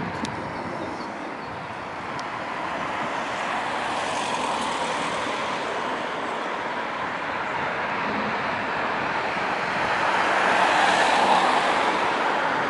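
Road traffic at a pelican crossing, with no crossing beeper sounding. The noise swells gradually and is loudest about ten seconds in, as a vehicle passes close.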